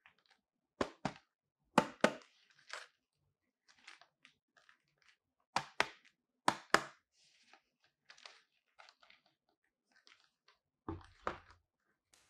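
Stiff clear plastic blister pack crackling as it is flexed and handled, in sharp clicks that mostly come in close pairs. Near the end it is set down on a table with two dull knocks.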